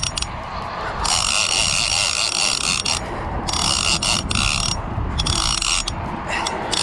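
Big-game conventional fishing reel's drag screaming in stretches as a hooked shark runs and strips line: a long run of about two seconds, then shorter spurts.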